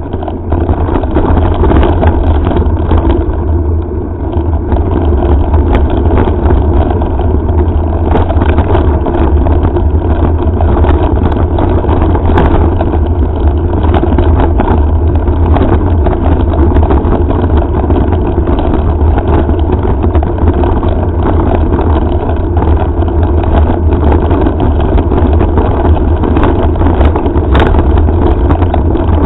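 Wind buffeting the microphone of a head-mounted action camera on a moving mountain bike: a loud, steady low rush. Frequent small knocks and rattles run through it from the bike and the loosely strapped camera on rough dirt and gravel.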